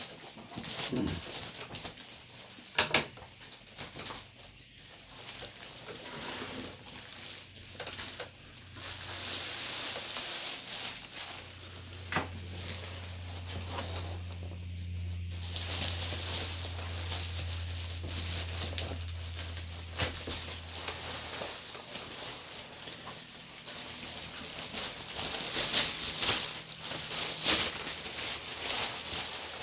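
Plastic courier bag and packaging rustling and crinkling as it is opened and a cardboard box is pulled out, with scattered knocks and taps of the box and packaging on a desk. A steady low hum joins in for about ten seconds midway.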